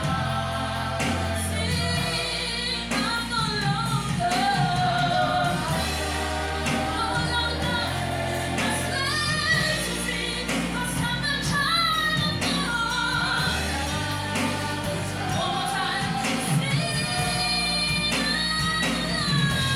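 Gospel worship song performed live: singers over a band, with held low bass notes that change every few seconds under the voices.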